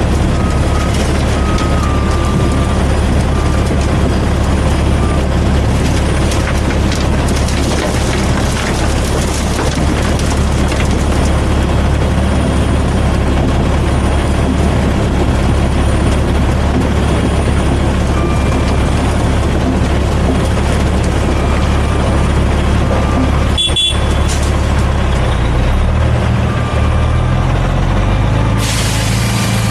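Heavy diesel engine running with a steady low drone, rising in pitch over the last few seconds as it revs up; a hiss starts about a second before the end.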